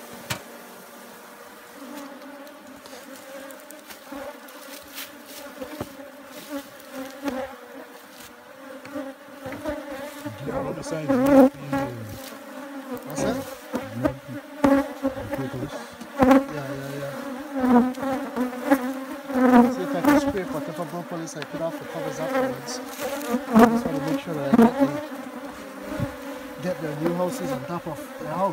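Honeybees buzzing around an opened hive: a steady hum whose pitch wavers as single bees fly close past, growing louder about ten seconds in.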